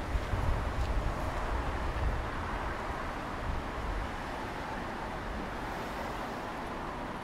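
City street ambience: steady road traffic noise, with a heavier low rumble of passing vehicles in the first few seconds that settles into a quieter, even hum.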